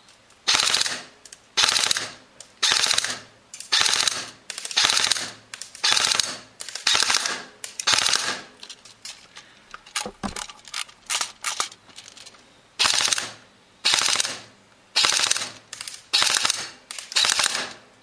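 G&G M4 CQB-S airsoft electric gun with blowback firing a string of short bursts, about one a second: the gearbox and piston cycling with the blowback action. There is a pause of a few seconds about halfway through, filled with quick light clicks.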